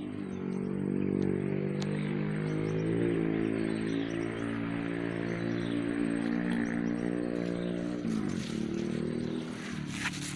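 A small engine running at a steady speed, its pitch falling as it slows about eight seconds in.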